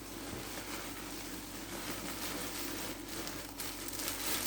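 Soft, irregular rustling of clothing and plastic packaging being handled, over a steady low hum.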